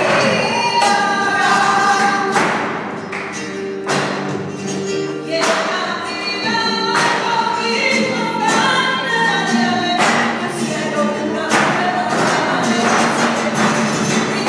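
Live flamenco: a singer's wavering voice over guitar and double bass, with sharp percussive strikes about once a second.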